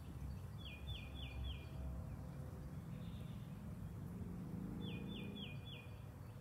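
A songbird sings twice, each phrase four clear whistles falling in pitch: one phrase about a second in and one about five seconds in. A bumblebee's low buzz swells around the middle.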